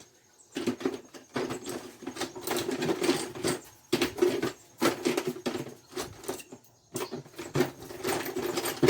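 Metal and plastic parts of a washing machine's brake assembly being handled and worked by hand: a rapid, irregular run of clicks, taps and scraping, pausing briefly a couple of times.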